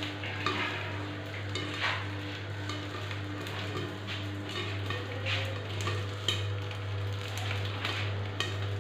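Popcorn kernels popping in hot oil and salt in a pan: scattered single pops over a frying sizzle, with a steady low hum underneath.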